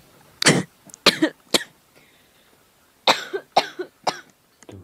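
A woman coughing in two fits: about four coughs about half a second in, a pause, then three more about three seconds in.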